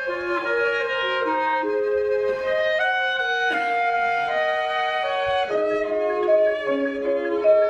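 Contemporary chamber music: a clarinet leads over violin, cello and flute, the instruments holding overlapping sustained notes that change pitch every second or so.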